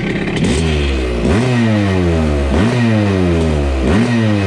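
1980 Honda CR250 Elsinore's two-stroke single-cylinder engine, still cold, revved in four quick throttle blips, each pitch shooting up and falling slowly back toward idle. It is running on its first start in a decade with the carburettor air screw backed out one turn, and it picks up the throttle responsively.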